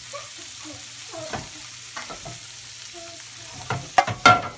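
Sautéed vegetables and black beans sizzling in a stainless steel pan. About four seconds in come several sharp metal clanks of tongs against the pan.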